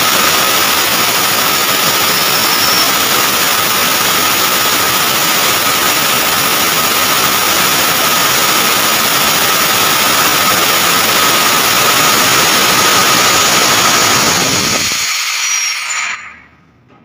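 FM-200 clean-agent fire suppression system discharging through its nozzle: a loud, steady rushing hiss with a thin whistle running through it, which dies away quickly near the end as the discharge finishes.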